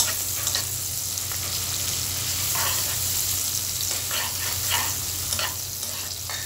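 Sliced onions sizzling in hot oil in a pan, being fried toward golden, while a spatula stirs and scrapes through them several times.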